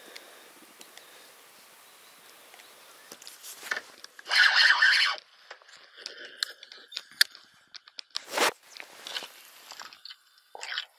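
Fishing tackle being handled: a loud rasping rustle about four seconds in that lasts about a second, then scattered clicks and knocks.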